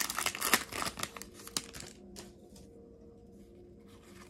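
Foil Pokémon booster pack wrapper crinkling loudly as it is torn open, for about the first second and a half. After that only faint rustles of the cards being handled.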